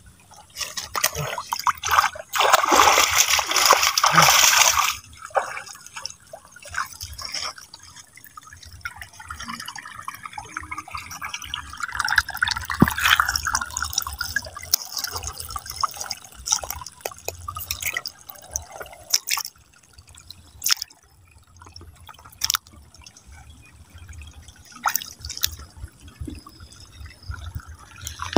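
Water splashing and trickling, with a louder rush of water about two to five seconds in, then scattered drips and small knocks.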